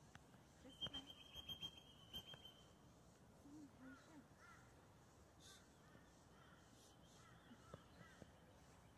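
Near silence, with a few faint bird calls.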